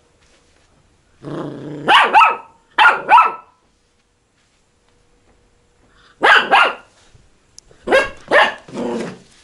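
Spaniel puppy barking at a cat: a short growl about a second in breaks into barks, and the barks come in quick pairs, with a pause of a couple of seconds in the middle.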